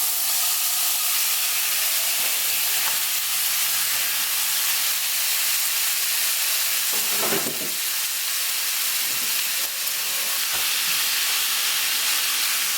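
Chopped bacon sizzling steadily as it fries in a hot pan in its own fat, with no oil added.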